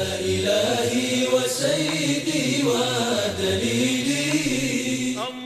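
A single voice reciting Quranic Arabic in a melodic, ornamented chant, with long held and winding notes.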